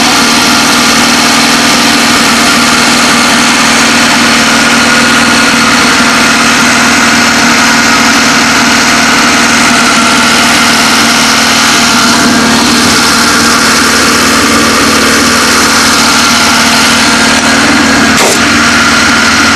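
1972 Toyota Corolla's four-cylinder engine idling steadily after a cold start at −15 °C, heard close up with the hood open. A single short click sounds near the end.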